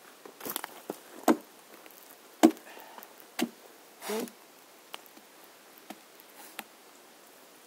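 Axe chopping into the trunk of a large felled oak: about five sharp, uneven strikes in the first three and a half seconds, then a short scraping sound just after four seconds and a few light knocks.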